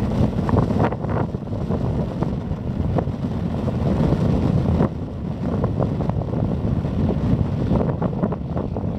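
Wind buffeting the microphone with a steady low rumble and gusty thumps, over the engine of a light single-engine aircraft moving along the airfield.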